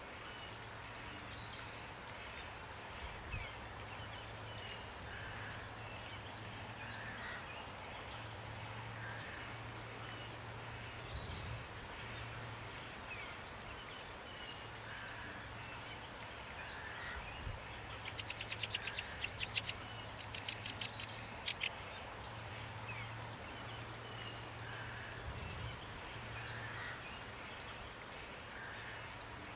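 Steady rain hiss with several songbirds singing over it in short high chirps and sweeping notes, and a fast trill of rapid notes about eighteen seconds in. A low steady hum runs underneath.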